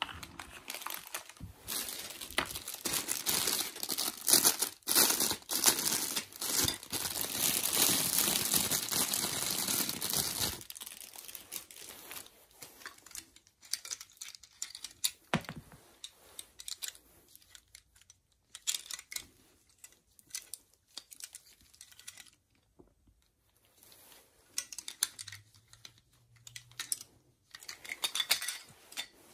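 Crinkling plastic packaging bag being handled and opened for about ten seconds, then lighter clicks and taps of hard plastic vegetable corers being handled and set down.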